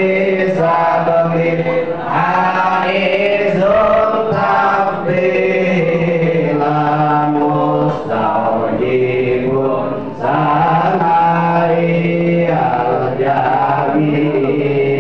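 A group of men chanting together in unison, a devotional Islamic chant of the kind sung at a pesantren gathering. It is sung in long held notes that move step by step from one pitch to the next, without a break.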